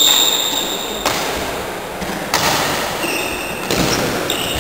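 Floorball play on a sports-hall floor. It opens with a loud high squeak about a second long, followed by a few sharp knocks roughly a second apart. Short high squeaks of shoes on the wooden floor come near the end.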